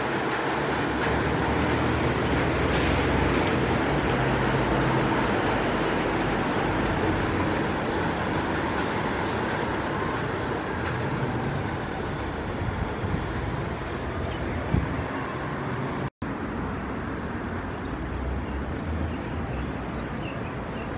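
Rubber-tyred light rail people-mover cars running on an elevated concrete guideway: a steady rumble and hiss, loudest in the first few seconds as a car passes close, with a few faint high whines near the middle and background traffic noise. The sound drops out for an instant about two-thirds of the way through.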